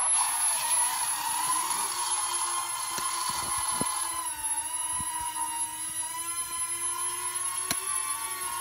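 Propellers of a small toy quadcopter drone built as a Millennium Falcon, whining steadily in flight as it lifts off and hovers; the pitch wavers, shifts about four seconds in, then holds. A few light clicks sound over it.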